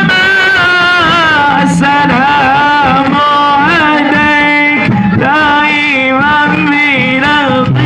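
Male voice singing an Arabic sholawat, a devotional song in praise of the Prophet, into a microphone through loudspeakers. He holds long wavering notes with ornamented turns in the melody.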